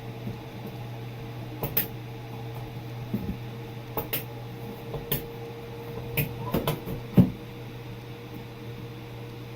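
Scattered light clicks and knocks of plastic and metal parts being handled and fitted while a bathroom exhaust fan is installed, over a steady low hum.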